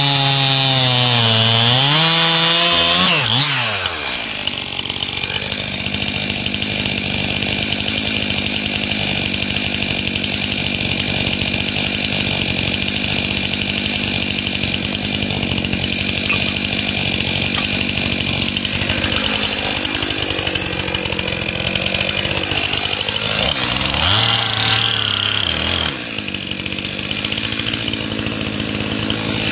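Two-stroke chainsaw cutting into a tree trunk at full throttle, its pitch sagging under the load, then let off about three seconds in and left idling steadily. Near the end it is briefly revved once before dropping back to idle.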